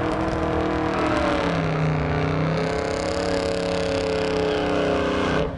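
Engine of a stretched Holden WB Statesman limousine running hard on a drag-strip run. Its pitch dips about a second and a half in, then climbs slowly, and the sound drops away abruptly near the end.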